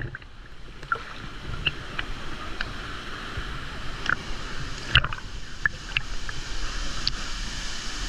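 Waterfall pouring into a plunge pool: a steady rush of falling water, with occasional short sharp splashes and ticks of water close by, the strongest about five seconds in.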